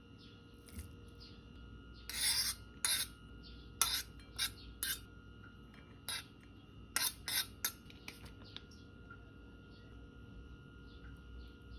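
A series of short, separate scraping strokes, about nine of them over some six seconds, with quiet stretches before and after. A faint steady hum runs underneath.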